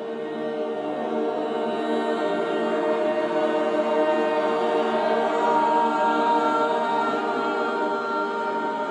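Group of voices singing a cappella in long held chords, swelling louder toward the middle and easing off near the end.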